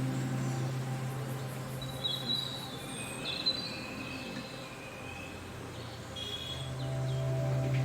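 Birds chirping in short high calls a few times over a steady low hum.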